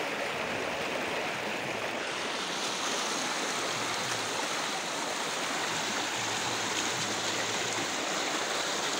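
A fast-flowing stream rushing steadily, its water noise loud and even.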